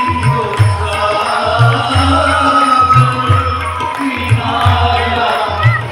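Devotional bhajan over loudspeakers: a sung melody over a steady drum beat of about two beats a second.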